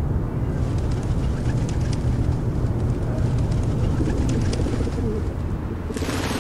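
Pigeons cooing, with light flutters, over a steady low rumble; a sudden burst of noise near the end.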